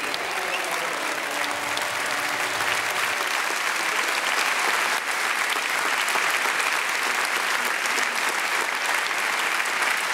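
Large studio audience applauding steadily, with the last few held notes of music fading out in the first three seconds.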